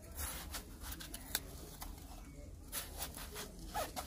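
Knife cutting through watermelon rind and flesh, giving a handful of separate crisp clicks and cracks, the sharpest about a second in and another cluster near the end.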